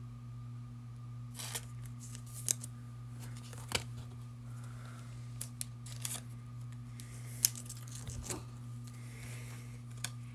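Scattered faint clicks and rustles of trading cards and pack wrappers being handled, over a steady low electrical hum.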